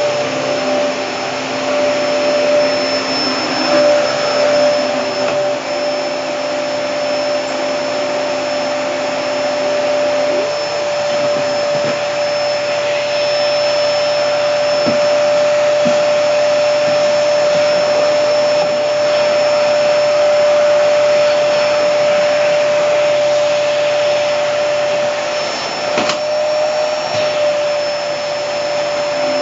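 Hoover Hurricane pet-model vacuum cleaner running steadily with its brush roll going, a high motor whine over a dense rushing noise. A lower hum fades out about ten seconds in, and a few short clicks come through near the middle and near the end.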